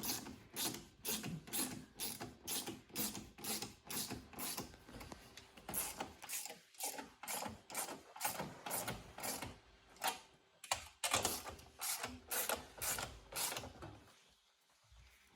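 Ratchet wrench clicking steadily, about three clicks a second, as it tightens a hose clamp on turbo boost piping; the clicking stops near the end.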